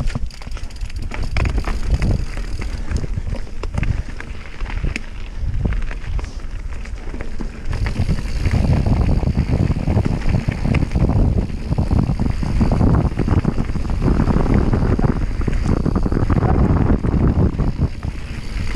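Mountain bike rolling over a rough dirt trail, with tyre noise and the bike rattling and knocking over bumps, and wind buffeting the microphone. Louder from about eight seconds in.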